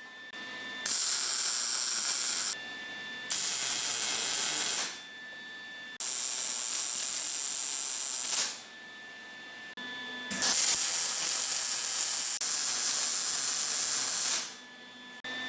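Welding arc crackling and hissing in four separate bursts of a couple of seconds each, each starting sharply, as steel frame parts are welded. A faint steady whine from the welding machine is heard in the gaps between bursts.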